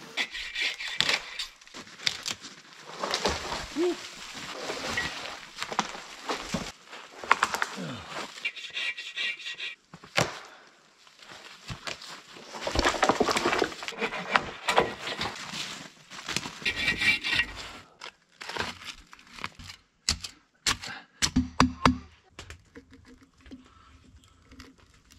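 Bow saw cutting through a small tree trunk in several stretches of rasping strokes, with short pauses between them; a few sharp knocks near the end.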